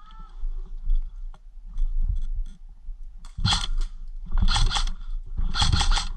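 Airsoft electric gun (a Cybergun Colt M4 AEG) firing three short bursts on full auto, a fast rattle of shots starting about three seconds in. Before that there are only a few quiet clicks and scuffs.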